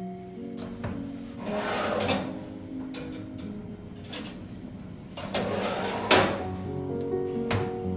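Metal oven rack sliding and clattering as a ceramic baking dish is set on it and pushed into the oven: two spells of scraping, about a second and a half in and again about five seconds in, with a sharp knock at the end of the second and another knock near the end. Soft plucked-string music plays underneath.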